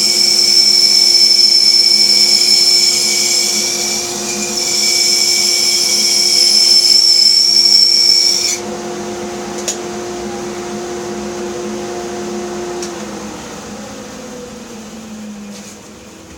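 Bandsaw running and cutting through a block of wood, with a high whine that stops abruptly about halfway through as the cut ends. The saw's motor hum carries on, then drops in pitch as the machine is switched off and spins down near the end.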